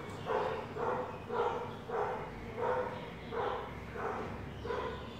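A dog barking repeatedly at an even pace, about eight short barks a little under two a second.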